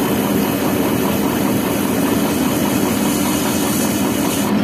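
Diesel engine of a KAMAZ truck-mounted crane running steadily while the crane holds a concrete block on its hook.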